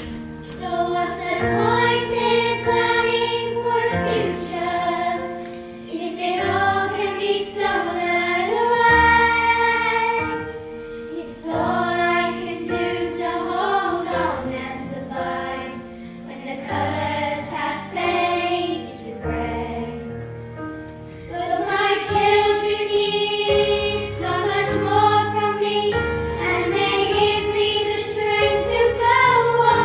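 Young girls singing a song together as a choir, over instrumental backing music.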